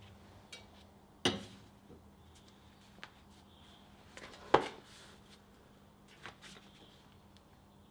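A few metal knocks and clicks as a steel rod is handled and set upright on a round steel workpiece clamped in a bench vise, with two sharp loud knocks about a second in and a little past four seconds, over a faint steady hum.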